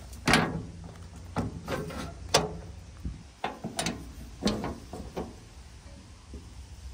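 Footsteps crunching on gravel and stones, a dozen or so sharp irregular steps and knocks, over a low steady rumble.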